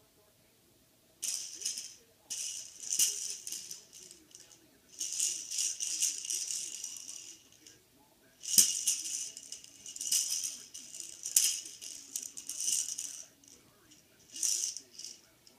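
A baby shaking a small plastic ring rattle toy: rapid bead-rattling in repeated bursts of a second or two, with short pauses between them, starting about a second in.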